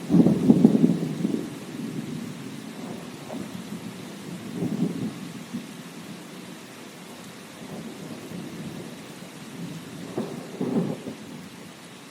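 Steady rain with thunder rumbling over it: a loud peal breaks right at the start and rolls on, with further swells of rumble about five seconds in and near the end.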